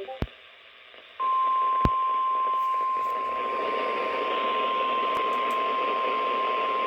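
NOAA Weather Radio warning alarm: a single steady 1050 Hz tone that comes on about a second in and holds, over radio hiss, announcing a severe thunderstorm warning. A few sharp clicks come just before the tone starts.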